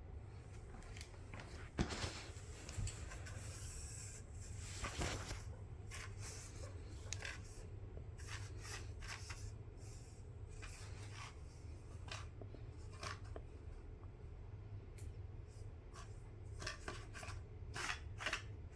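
Cardboard toilet-paper roll being pawed and pushed about by a cat trying to get food out of it: faint intermittent scraping and rubbing with small knocks, a single knock a little under 2 seconds in and a quicker run of scrapes near the end.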